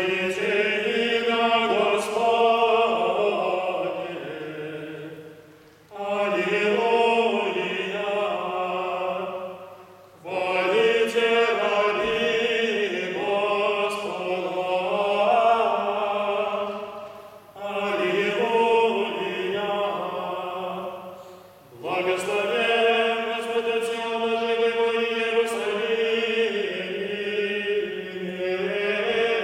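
A trio of Russian Orthodox monks singing liturgical chant a cappella in several-part harmony. The singing comes in about five phrases, with short breaks between them.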